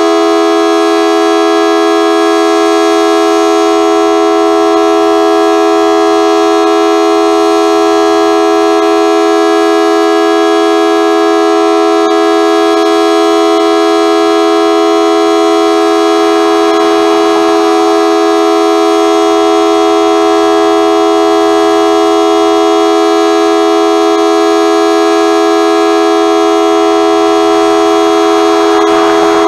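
Federal Signal Model 2T two-tone outdoor warning siren sounding a steady chord at constant pitch during a test. It sounds low-pitched, which the recordist takes as a sign that it doesn't sound too good.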